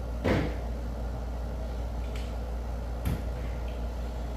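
Two sharp clunks about three seconds apart, the first the louder, as handheld power tools are picked up and set down, over a steady low hum.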